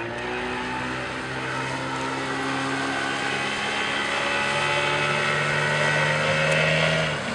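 Small outboard motor at full throttle pushing a small boat onto the plane, slowly getting louder, its engine note stepping up about halfway through as the boat comes up onto the plane.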